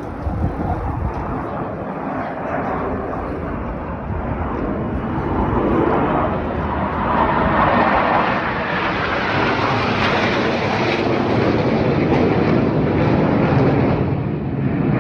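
Jet aircraft of the Black Eagles aerobatic team, KAI T-50B trainers, flying past: a rushing jet noise that swells from about six seconds in and stays loud until near the end.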